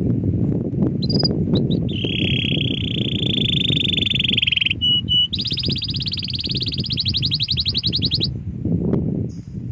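Canary singing: a few short chirps, then a long rolled trill held for nearly three seconds, two short notes, and a faster, higher rolled trill for about three seconds. A low rumbling noise runs underneath.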